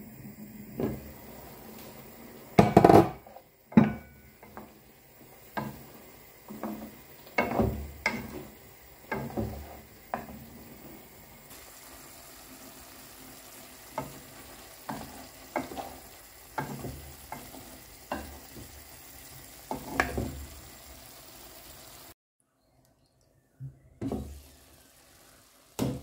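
Wooden spatula stirring chicken wings and chunks of potato and vegetables in a granite-coated frying pan, with irregular knocks and scrapes against the pan about once or twice a second over a faint steady sizzle. The sound cuts out completely for a moment near the end.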